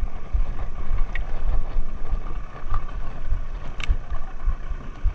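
Wind buffeting the microphone on an open fishing boat at sea, with a faint steady hum underneath. A few light clicks come through, with one sharp click about four seconds in.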